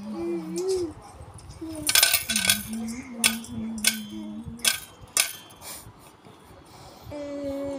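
A stainless steel pot being handled and knocked by a baby, giving a run of metallic clanks and clinks, some with a short ring, as plastic toys shift inside it.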